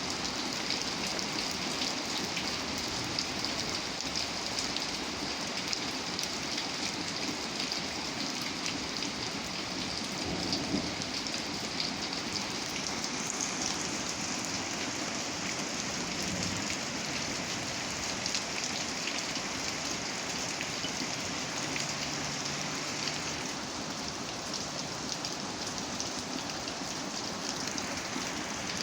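Steady rain falling on surfaces, an even hiss with many close drop ticks throughout.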